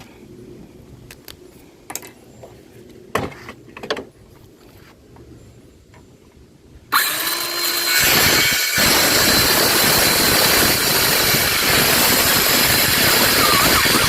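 A few handling knocks, then about halfway in a cordless power saw starts and cuts into a 2x10 pine board with a loud, steady noise. The owner takes the tool's sound for a sign that its battery is running low.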